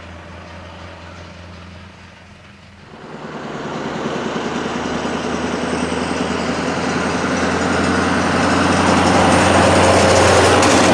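Scania R500 V8 diesel truck with open standing exhaust pipes running and driving up. Its engine note is faint at first, dips briefly about three seconds in, then grows steadily louder as the truck approaches and passes.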